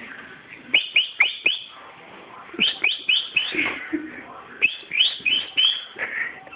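A bird chirping: three runs of about four quick chirps, each sharply falling in pitch.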